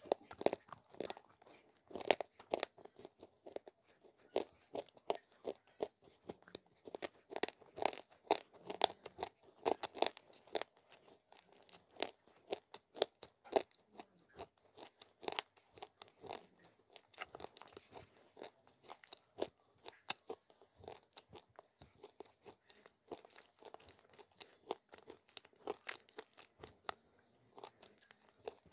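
Close-miked crunching and chewing of hard baked clay ('mitti cookies'), a dense run of sharp gritty cracks as the pieces are ground between the teeth, thinning out a little near the end.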